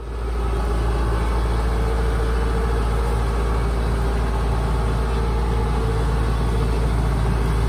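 Kubota rice combine harvester's diesel engine running at a steady pitch as the tracked machine creeps down a steep bank onto a concrete lane. The sound fades in at the start, then holds steady.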